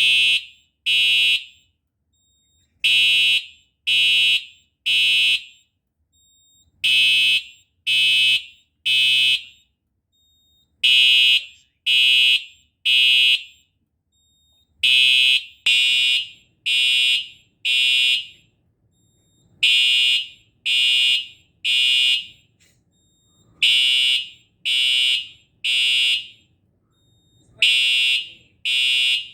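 Simplex 4906-9127 TrueAlert fire alarm horn/strobe sounding its temporal-three evacuation pattern: three short, high horn blasts about a second apart, then a pause, repeating about every four seconds. A pulled fire alarm pull station set it off.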